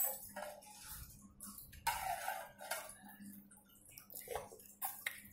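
Eating sounds: a child chewing chicken satay and handling bamboo skewers over the food, soft irregular clicks and rustles.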